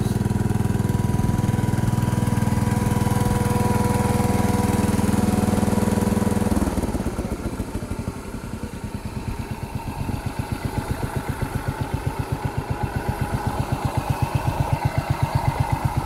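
1975 Case 224 garden tractor's single-cylinder engine running at steady speed, powering the wood splitter's hydraulic pump. About six and a half seconds in it drops suddenly to a slow idle with distinct, evenly spaced firing pulses.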